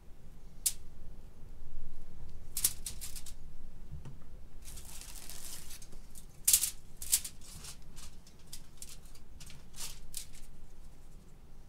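Butter knife scraping butter from a plastic tub and spreading it across the cut faces of sub buns: a string of short, scratchy scrapes and ticks, with a longer rasping spread about five seconds in.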